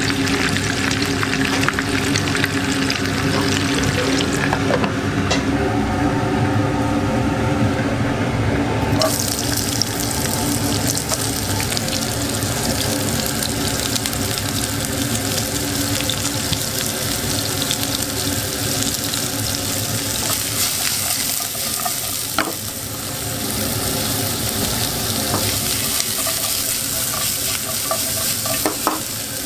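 Food frying in hot oil in a pan: a burger patty sizzling, then sliced onions and mushrooms stir-frying over a gas flame. About a third of the way through, the frying turns brighter and hissier.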